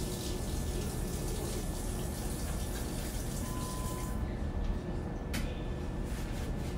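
Water from a sink tap running into a coffee pot, the hiss dropping away about four seconds in as the flow is shut off, followed by a sharp knock.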